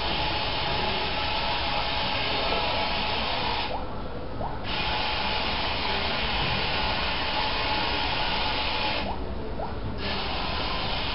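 A pair of 100 rpm Johnson geared DC motors driving a small wheeled robot, a steady whir. The whir drops out briefly twice, about four seconds in and again around nine seconds, as the motors stop and start.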